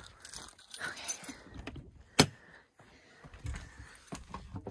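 Keys jingling and a sharp latch click about two seconds in as the entry door of a 2003 Lance 815 truck camper is unlocked and opened.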